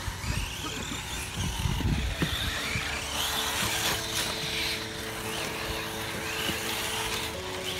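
1/10-scale 4WD short course RC trucks racing on a dirt track, their motors whining up and down in pitch as they speed up and slow for corners and jumps. Low rumbling in the first couple of seconds.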